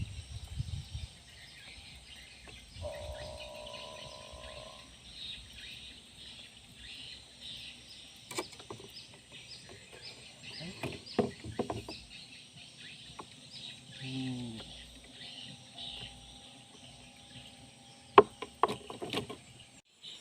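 Outdoor ambience with steady, rapid high chirping throughout. A held tone sounds for about two seconds near the start, and scattered knocks and clicks come through, the sharpest near the end.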